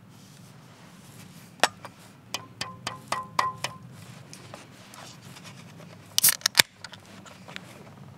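An aluminium can of pilsner being handled and opened. A sharp click comes about a second and a half in, then a quick run of ringing metallic taps on the can top. About six seconds in, the ring-pull cracks open with a short hiss of carbonation and a final click.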